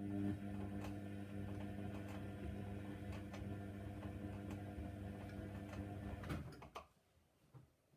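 Hoover Nextra washing machine running mid-cycle: a steady motor hum with light clicks and knocks, which stops about six and a half seconds in.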